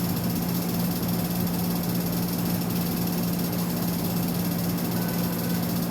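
Steady machine hum with a low droning tone, unchanging in level throughout.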